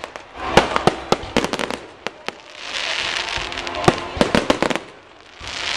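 Fireworks display: a rapid string of sharp pops and bangs from aerial shells, with a hissing crackle that swells about halfway through and dies down near the end.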